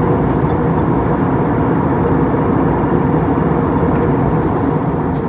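Steady cabin noise of an Airbus A321neo in climb, heard from inside the passenger cabin: an even rush of airflow and engine noise with a faint steady hum.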